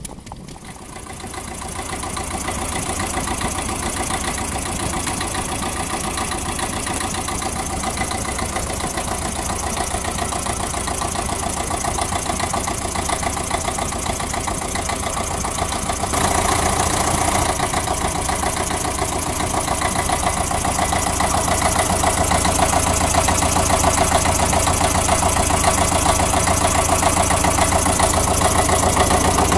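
BUKH diesel motor-generator set running steadily with an even beat. It gets louder about halfway through.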